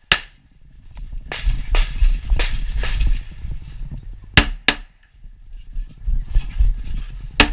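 Pistol shots from an STI Trojan single-stack in .38 Super, fired in quick pairs during an IPSC course of fire, about ten shots with short pauses between the strings. A low rumble sits under the shots in the first few seconds.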